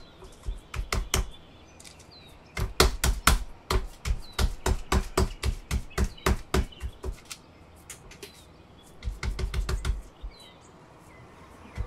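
Hands patting and pressing cauliflower pizza-crust dough flat on parchment paper: runs of quick, crisp pats and taps in bursts, the densest from about three to seven seconds in.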